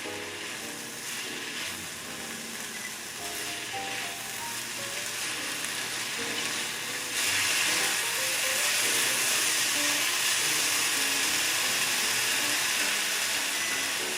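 Bacon, shungiku and shimeji frying in a pan: a steady sizzle that suddenly gets louder about seven seconds in and stays loud.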